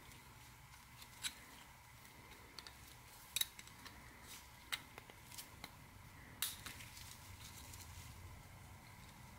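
Faint, sharp metallic clicks, four or five over several seconds, as a steel compression ring is spread and snapped into its groove on a Subaru piston by gloved hands.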